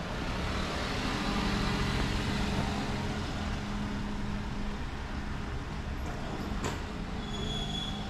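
City street traffic: a motor vehicle's engine running close by with road noise, swelling over the first couple of seconds and then holding steady, and a short high squeal near the end.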